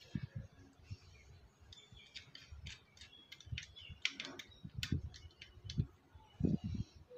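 Small screwdriver clicking and scraping in the screw terminal of a plastic modular switch plate as a wire is fastened, with light ticks from the wires being handled and a few dull knocks against the plate near the end.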